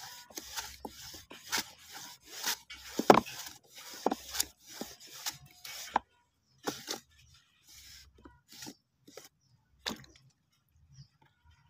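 Wooden hand-worked banana slicer (pasah) cutting kepok bananas into thin chips, its pusher scraping through the wooden chute over the blade in sharp strokes. The strokes come about once a second for the first half, then thin out to a few scattered scrapes.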